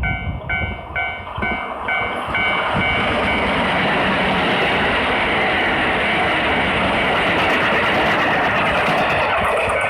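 Japanese level-crossing warning bell dinging about twice a second, drowned out after a couple of seconds by a Kintetsu Osaka Line train passing through the crossing at speed, a loud steady rush of wheels on rails that ends just before the bell is heard again.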